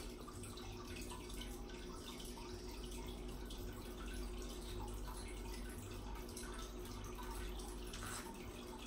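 Faint, steady household background noise with a low hum running under it, and tiny scattered ticks.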